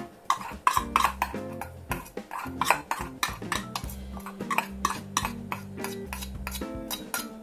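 Metal spoon scraping and clinking against a small stainless-steel bowl in a quick, uneven run of scrapes and taps as a thick sauce is spooned out of it.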